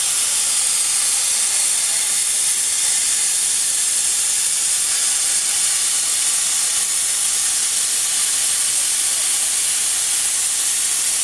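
Portable CNC plasma cutter's torch cutting steel plate: the plasma arc gives a steady, high hiss with no break.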